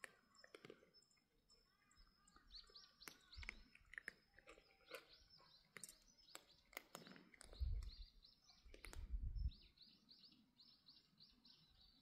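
Faint small-bird chirping in quick runs of short, high chirps, over scattered crisp clicks of cats crunching food from a bowl. Two brief low rumbles come a little past the middle.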